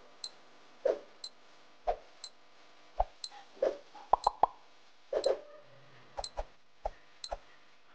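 Quiz countdown timer sound effect: short bubbly plops alternating with sharp high ticks, about two sounds a second.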